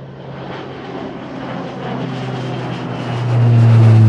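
Jet aircraft sound growing steadily louder, with a deep steady hum that swells sharply about three seconds in.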